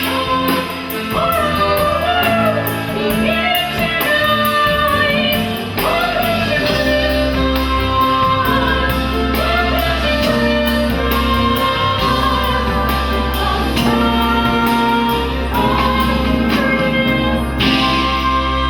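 Live Christmas show music: a woman singing a wavering lead melody over a band with a sustained bass line and a steady beat.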